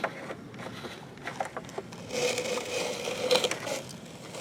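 Toy construction truck scraping and crunching through dirt and gravel: scattered small clicks and scrapes, with a longer grating scrape for about a second and a half in the middle.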